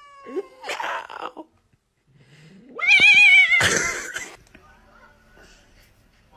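An angry domestic cat yowling: a quiet drawn-out cry at the start, then a loud wavering yowl about three seconds in that breaks straight into a sharp hiss.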